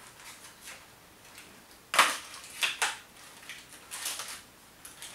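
Plastic snack wrapper crinkling in short crackles as a small packet is pulled open by hand, the loudest crackle about two seconds in.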